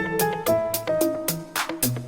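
Background music with a steady beat and held keyboard-like notes.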